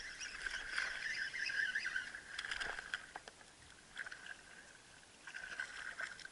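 A bass hooked on a topwater mouse lure, splashing at the surface as it is reeled toward the kayak, with a few sharp splashes in the first three seconds. A high chattering runs in the background.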